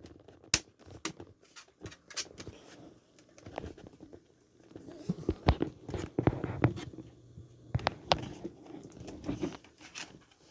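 Irregular clicks, taps and light rattling as laptop parts are handled and pressed into place by hand.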